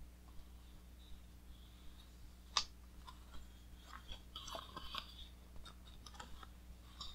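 Pages of a large hardcover art book being turned by hand, with faint paper rustling and crinkling. A single sharp click comes about two and a half seconds in, then a cluster of crackling page rustles a second or two later.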